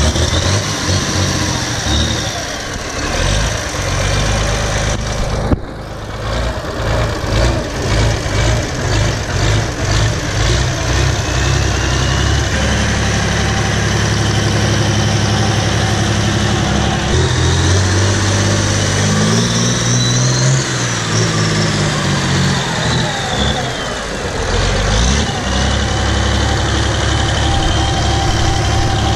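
International 1486 pulling tractor's diesel engine running loud as the tractor drives slowly. It revs up and back down once past the middle, the pitch rising and then falling.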